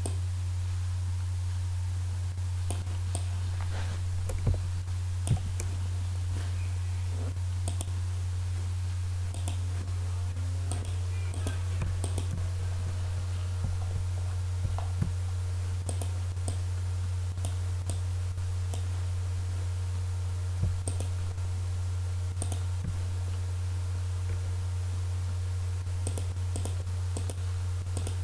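Scattered computer mouse clicks, a dozen or so at irregular intervals, over a steady low hum.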